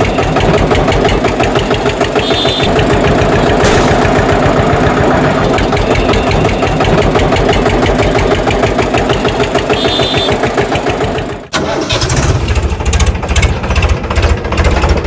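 Engine running with a rapid, even pulsing beat; it cuts out abruptly about eleven seconds in and picks up again at once.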